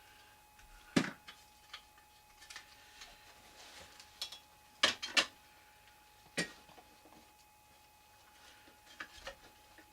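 Irregular light knocks and clicks of dolls being handled and set down in place, with a sharp knock about a second in and two sharp knocks close together about five seconds in.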